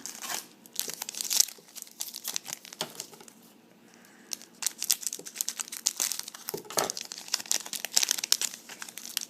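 A trading-card pack wrapper being torn open and crinkled by hand: a dense crackling, with a short pause partway through.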